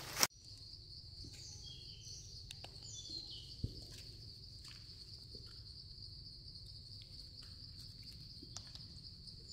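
Insects trilling steadily at a high pitch, with a few faint clicks and one soft knock about three and a half seconds in.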